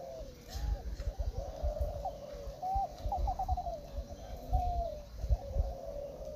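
A chorus of many caged spotted doves cooing at once, their coos overlapping without a break. Low rumbles of wind on the microphone come and go, loudest a little after the middle.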